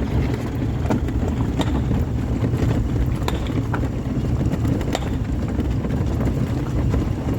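Steady engine and road rumble of a moving vehicle, with small clicks and rattles now and then.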